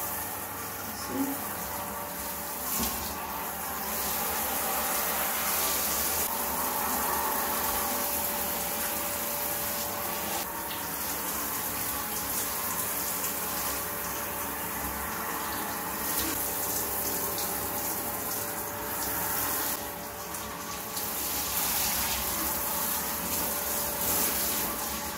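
Handheld shower spraying hot water onto tiled walls and a glass bath screen, rinsing off bathroom cleaner after scrubbing. It is a steady rush of water whose loudness shifts as the spray moves across the surfaces.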